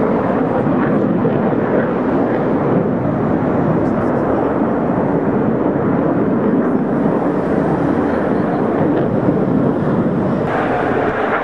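Jet noise from four Boeing F/A-18 Hornets flying past in formation, a steady rushing sound that turns brighter in tone near the end.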